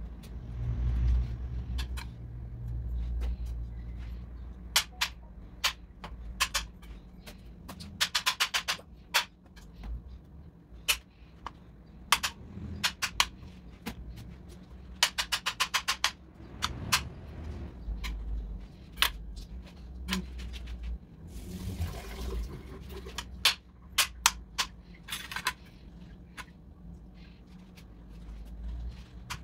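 Kitchen knife cutting papaya on a cutting board: scattered knocks of the blade hitting the board, with two quick runs of rapid chopping about 8 and 15 seconds in. A brief rushing noise comes about 22 seconds in, over a steady low hum.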